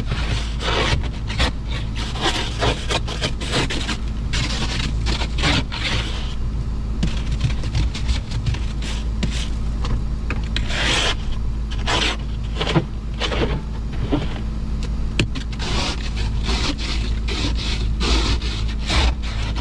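Ice scraper scraping frost and ice off a pickup's windshield glass, heard from inside the cab: a run of irregular rasping strokes over a steady low hum.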